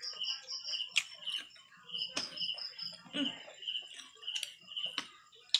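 Night insects chirping in a steady rhythm, about three short chirps a second, in two pitches. A few sharp clicks and knocks from plates and utensils at the table.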